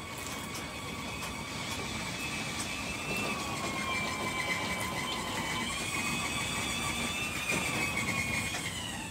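Hydraulic system of a Cottrell car-hauler trailer running as the decks are worked, a steady whine that wavers slightly in pitch and fades near the end.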